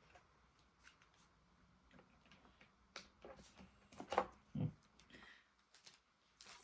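Faint clicks and rustles of hands handling a RAM module and motherboard parts, with one louder click about four seconds in.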